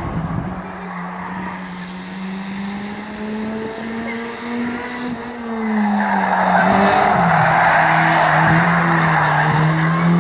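Euro rod hatchback race car running at steady revs. Its note rises a little, then drops as the car goes into a bend, and from about six seconds in the tyres squeal and scrub loudly as it slides round the corner.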